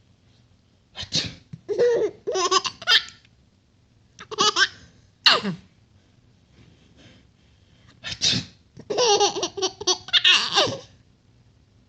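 A baby laughing in three bouts of short bursts, mixed with a man's sneezes that set the laughter off.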